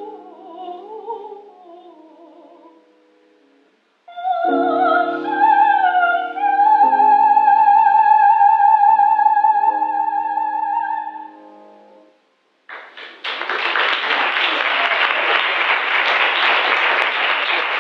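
Female classical singer singing a spiritual in operatic style with piano accompaniment: one phrase fades out, a brief pause follows, then a final phrase over sustained piano chords rises to a long held high note that fades away. Applause breaks out about thirteen seconds in.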